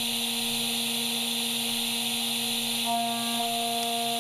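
Flood coolant spraying as a 5-axis machining center mills a workpiece: a steady hiss, with steady humming tones underneath that shift about three seconds in.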